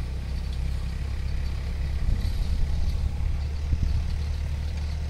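Kubota 27 HP compact tractor's diesel engine running steadily as a low rumble while it drives a mist boom sprayer through the field.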